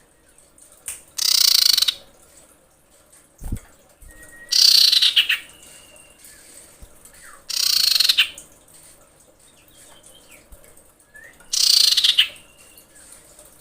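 Female common iora calling to attract a male: four loud, harsh, rasping calls a few seconds apart, each sliding downward in pitch, with faint short whistled notes between them.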